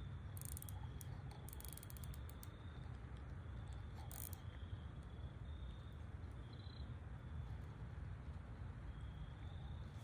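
Faint outdoor ambience: insects trilling in short repeated pulses about once a second over a low steady rumble, with a few light clicks in the first half.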